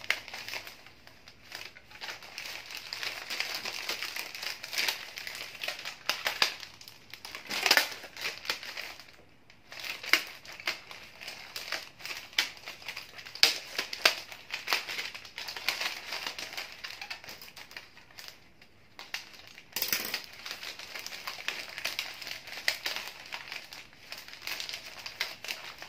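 Sheets of bouquet wrapping paper crinkling and rustling as hands gather and bunch them tightly at the neck of a flower bouquet, in uneven spells with a couple of short pauses.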